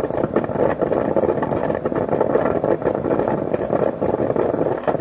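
Drip coffee maker brewing: freshly brewed coffee running in thin streams from the filter basket into the carafe, a steady, even liquid noise.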